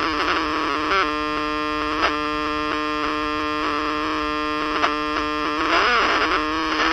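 Small AM transistor radio playing through its own speaker while being tuned: hiss and static with a station's sound, a steady buzzing tone for several seconds in the middle, and a few clicks. The radio is running with its 30 microfarad electrolytic capacitor removed, the part suspected of causing its distortion.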